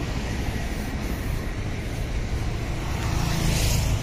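Road traffic: a car's engine and tyres on the road, growing a little louder about three seconds in as it comes closer.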